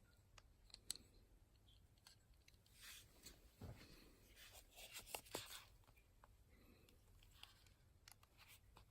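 Near silence with faint handling noises: soft rustles and a few small clicks scattered through.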